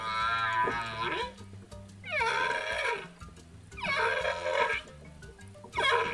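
Dolphin calls: high, squealing cries that bend in pitch, repeated about every two seconds over light background music.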